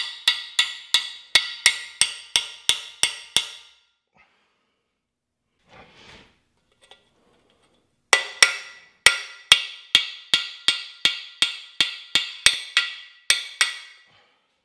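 Hammer blows on a socket driving a freeze plug into the cast-iron Chevy 350 small-block: quick, sharp metallic strikes about three a second. They stop about three and a half seconds in, and a second run starts about eight seconds in and goes on until shortly before the end, as the plug is seated.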